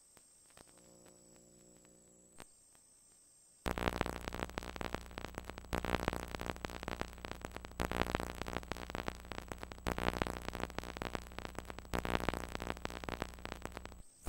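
Synthesizer music. After a few quiet seconds with a faint held chord, a loud, dense synth passage starts suddenly about four seconds in, changes about every two seconds, and cuts off abruptly just before the end.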